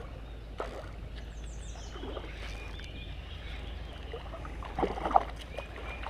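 Water splashing in irregular bursts as a hooked largemouth bass is fought in and landed, the biggest splash about five seconds in, with birds chirping faintly.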